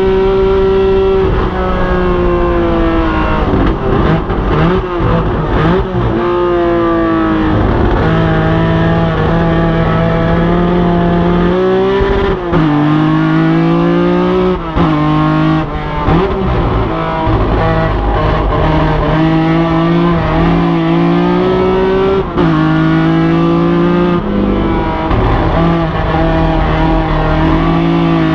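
BMW 3.0 CSL race car's straight-six engine at racing speed, heard from the cockpit: revs climb steadily through the gears, each climb broken by a sudden drop at the shift, with a choppier stretch of lifting and downshifting for a corner a few seconds in.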